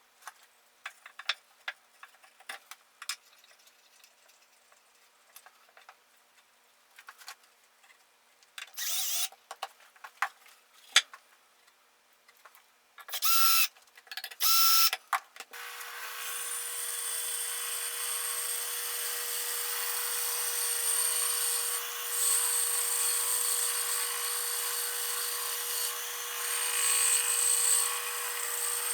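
Light clicks and knocks as a piece of firewood is set up in a wooden bandsaw sled, a few short loud bursts, then from about halfway through a bandsaw running steadily with a high hiss as the blade cuts through the wood. The cut stops right at the end.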